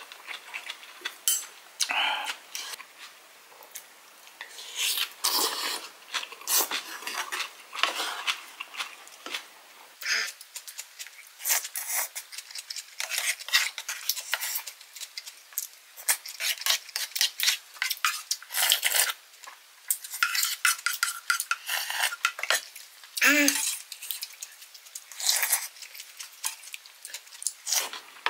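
Wooden spoon and chopsticks clacking and scraping against a wooden bowl and dishes while someone eats: many short, irregular clicks and scrapes.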